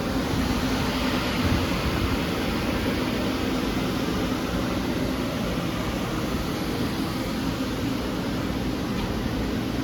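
Steady mechanical hum with an even hiss from powered machine-shop equipment, a constant low drone under airy fan-like noise that holds level throughout.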